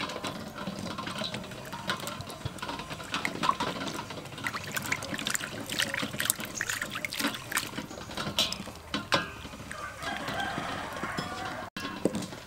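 Duck eggs being washed by hand in a stainless steel bowl of water: splashing and sloshing, with many small clicks. A rooster crows in the background.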